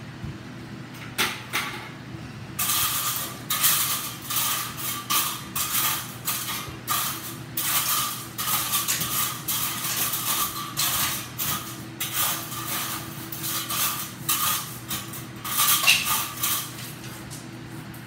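A hand trowel scraping over a rough concrete slab floor in quick repeated strokes, which come thicker from about two and a half seconds in.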